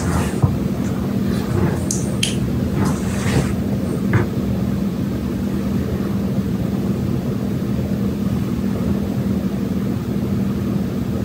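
A steady low mechanical hum, with a few short light ticks in the first four seconds.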